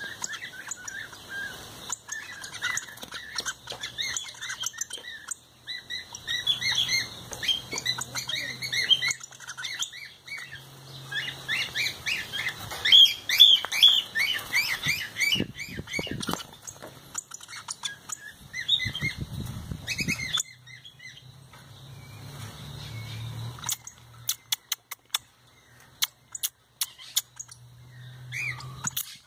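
Caged picahueso (golden-billed saltator) singing in bursts of quick, clear chirping phrases with short pauses between them. The song stops about two-thirds of the way through. Then come a string of sharp clicks near the end.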